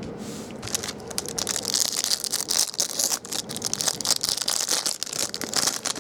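Plastic trading-card pack wrapper crinkling and crackling as it is handled and opened, with many quick crackles.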